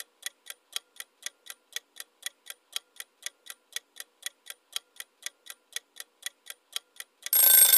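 Clock-ticking sound effect of a quiz countdown timer, about three to four even ticks a second. Near the end a loud ringing alarm bell cuts in as the countdown runs out.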